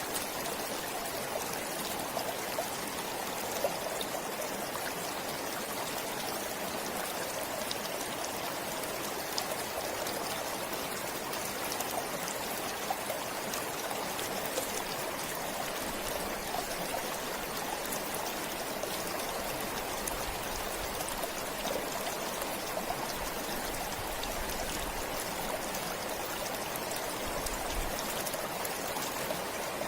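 Steady running water of a forest stream, an even rushing hiss with small splashes and trickles scattered through it.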